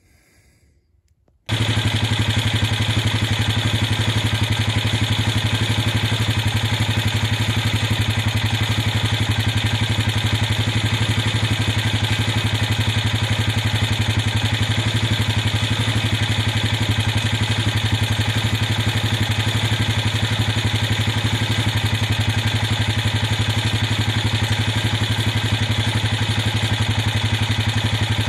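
After a moment of near silence, a motor vehicle's engine cuts in abruptly and idles loud and steady, with no change in speed.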